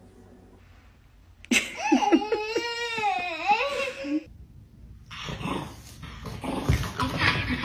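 A toddler laughing loudly for about two and a half seconds, starting a second and a half in. After that comes a rougher, noisier stretch from a small dog snarling.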